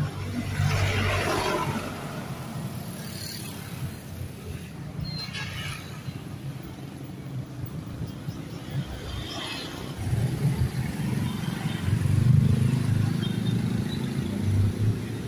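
Street traffic: motorcycle and car engines passing, with the engine rumble growing louder in the last few seconds.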